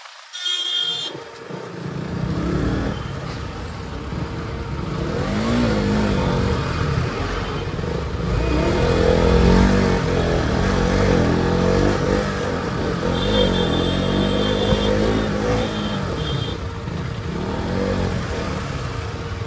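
A KTM motorcycle engine running while riding through traffic, its revs rising and falling, with wind noise on the microphone. Brief high-pitched tones sound about half a second in and again about two-thirds of the way through.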